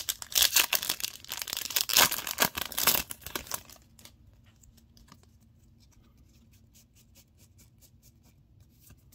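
A foil Digimon Card Game booster pack being torn open and crinkled for about the first three and a half seconds, then faint soft ticks of the trading cards being slid one by one through the hands.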